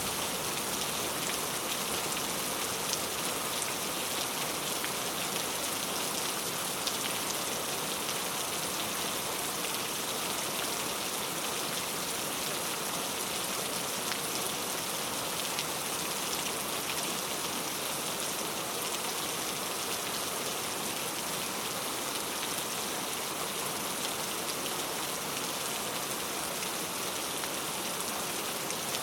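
Steady rain falling, an even hiss with scattered drops hitting a surface.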